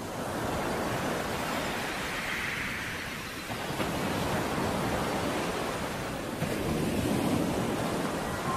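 Rushing, whooshing noise from a logo animation's sound effect, growing a little louder in steps about three and a half and six and a half seconds in.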